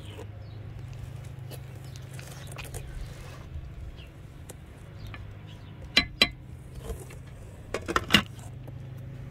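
Wooden spoon scraping and fluffing cooked rice in a black cooking pot, with sharp clinks against the pot: two about six seconds in, and a louder cluster around eight seconds in as the glass lid is set back on.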